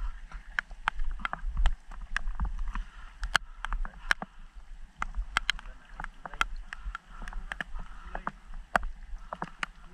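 Water sloshing and splashing as people wade waist-deep through shallow sea water, with frequent sharp, irregular splashes close by over a low rumble of moving water.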